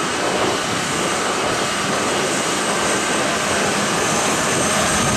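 Jet aircraft engine noise: a loud, steady rush with faint high whining tones in it, the deep rumble growing stronger near the end.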